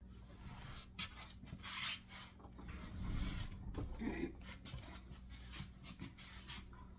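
Rustling, shuffling and light knocks as things on a wooden table are handled and moved, over a low steady hum.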